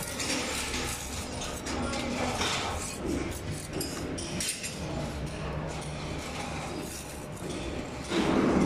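Steel brick trowel scraping mortar and tapping bricks as they are bedded onto a brick wall: a string of small clinks, knocks and scrapes.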